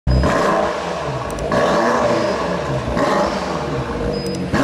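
2018 BMW M5's 4.4-litre twin-turbo V8 exhaust revved at standstill: three rev blips about a second and a half apart, each falling back.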